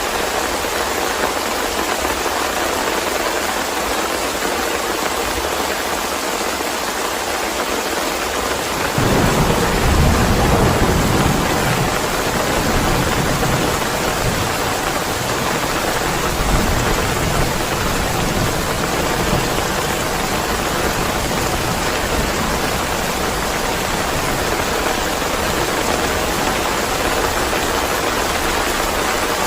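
Steady, even rain hiss. About nine seconds in, a roll of thunder rumbles in low and loud, then fades slowly, with a smaller swell of rumble a few seconds later.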